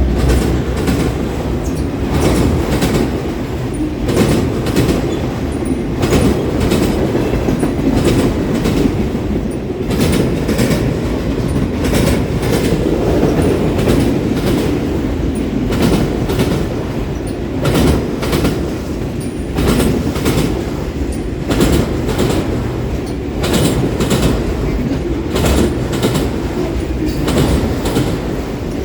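Canadian Pacific freight train rolling past, its cars' wheels clicking and knocking over rail joints at an uneven rhythm over a steady rumble.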